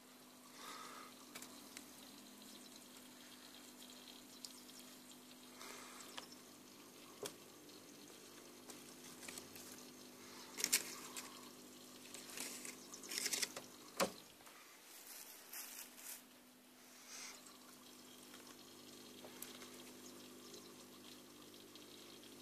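Small vivarium waterfall trickling steadily over a low hum, with a few brief clicks and rustles around the middle.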